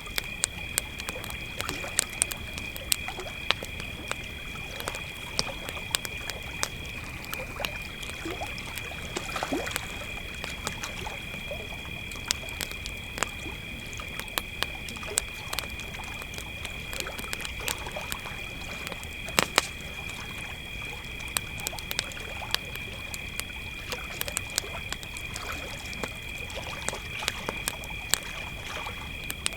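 Two crickets trilling steadily at two different pitches, the higher one stopping briefly about seven seconds in, over a crackling campfire with frequent irregular sharp pops, the loudest about two-thirds of the way through.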